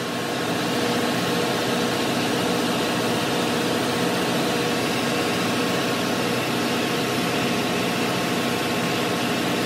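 Steady drone of running ship's engine-room machinery, with a fast fine pulsing and no breaks.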